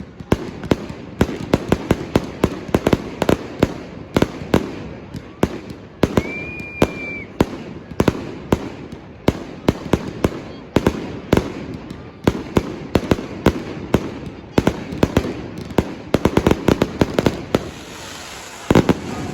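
Fireworks and firecrackers going off in a rapid, irregular volley of sharp bangs, several a second. A brief high whistling tone sounds about six seconds in, and a heavier bang comes near the end.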